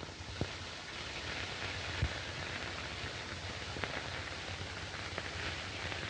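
Steady hiss of an old film soundtrack, with a few faint clicks and pops scattered through it.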